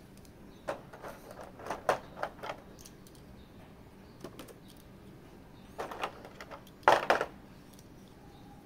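Hands handling a boxed collectible figure and its packaging: scattered clusters of small plastic clicks and rustles, the loudest burst about seven seconds in.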